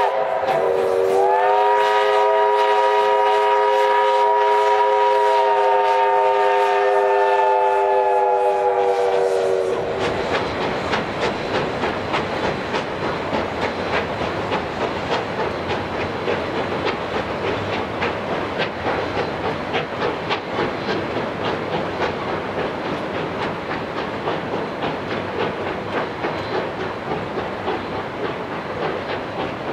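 Steam locomotive whistle blowing one long chord of several notes, sliding up to pitch as it opens and cutting off about ten seconds in. Then the train's wheels clatter steadily over the rail joints as the cars roll across the steel viaduct.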